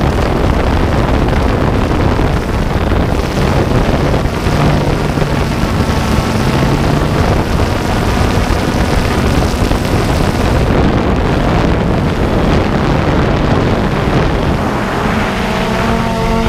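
DJI Phantom 2 quadcopter's motors and propellers heard from the onboard camera: a loud, steady rush with wind buffeting the microphone. A humming motor tone stands out more clearly near the end.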